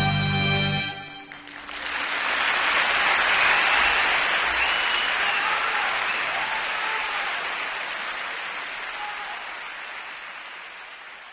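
Background music stops about a second in, and applause from a crowd follows, slowly fading away.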